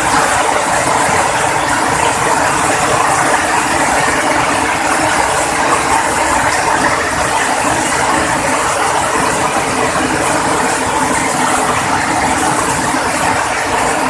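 Heavy rain pouring down, a dense, steady hiss of drops with a faint low hum underneath.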